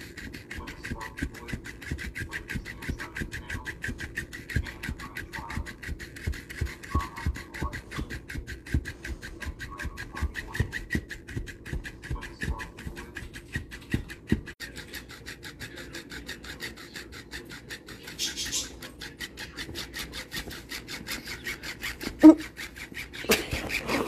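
Motorised flopping plush fish toy running, its tail flapping in a fast, steady rhythm over the buzz of its small motor. A single short, loud squeak comes about 22 seconds in.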